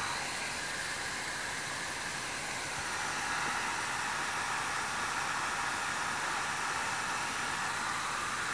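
Electric heat gun blowing a steady hiss of hot air onto solder seal connectors, shrinking the tubing while the solder ring inside melts. The hiss dips a little for the first few seconds and then steadies.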